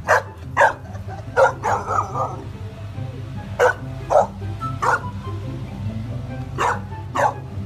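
Golden retriever puppy barking repeatedly: about a dozen short, sharp barks in uneven groups, with a quick run of them around two seconds in, over background music.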